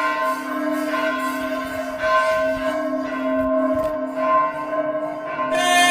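A temple bell struck rapidly and over and over, its tones ringing on and overlapping.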